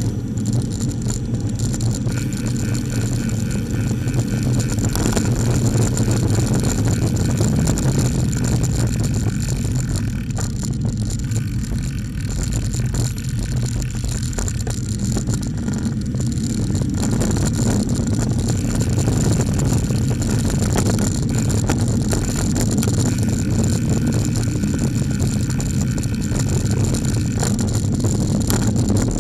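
Diesel engine of a Seddon Atkinson lorry running close behind a bicycle, a steady low rumble mixed with road and wind noise.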